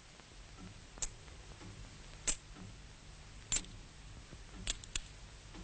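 Sharp ticks at a slow, even pace of about one every second and a quarter, the last one doubled, over a low hum.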